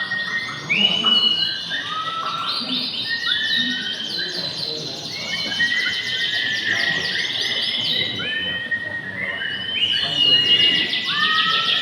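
Several domestic canaries singing at once: overlapping fast trills and short rising whistled notes, with no break.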